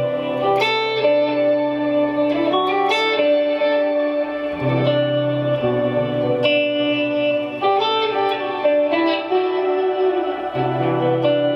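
Ambient electric guitar: a vintage Yamaha semi-hollow guitar's Porter WRH wide-range humbucker neck pickup played clean through a Source Audio Collider delay and reverb pedal. Picked notes and chords ring on and overlap into a sustained wash, with a low note coming in about halfway through and again near the end.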